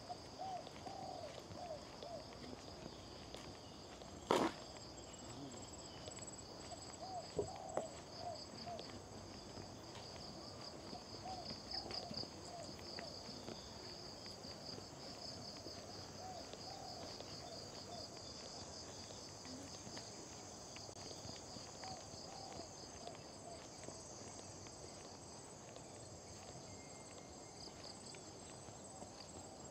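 Tropical jungle insects chirring in a steady, high, pulsing trill. Short, faint, lower calls come and go, and there is a sharp knock about four seconds in and a lighter one a few seconds later.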